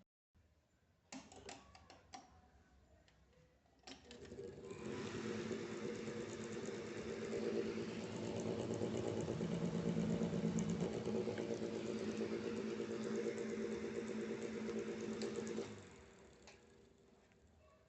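Electric fan running: a few clicks, then the motor's hum and the blades' whir build up over about a second and run steadily before dropping away sharply near the end.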